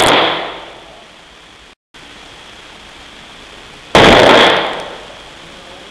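A single sharp gunshot about four seconds in, its echo ringing off the walls of an indoor range for about a second; the echo of an earlier shot is dying away at the start.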